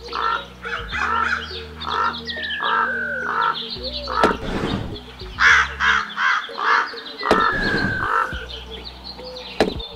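Crows cawing in a rapid series of calls, with two long falling whistled bird calls among them, over a steady low background music track.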